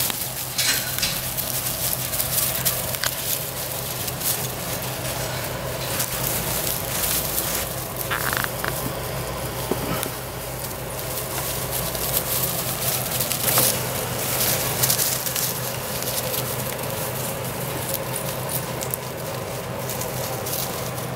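Weimaraner puppies scampering over dry wood-chip mulch and fallen leaves: irregular crackling and rustling of chips underfoot, with a steady low hum beneath.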